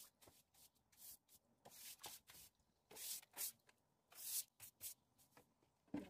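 Long-handled cleaning tool scrubbing tiled steps: a run of short, irregular swishes, about two a second, as the head is pushed back and forth over the tiles.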